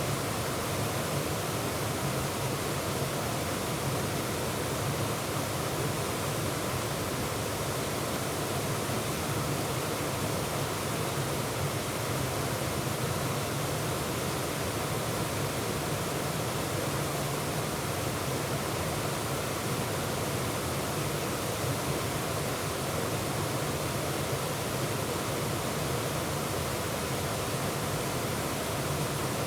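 Waterfall and the whitewater below it rushing with a steady, even roar of falling water.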